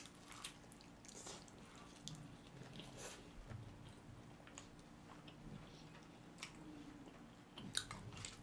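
Two people chewing mouthfuls of rice and raw marinated crab wrapped in roasted seaweed: faint, close wet mouth sounds with small clicks and smacks scattered through, a little louder near the end.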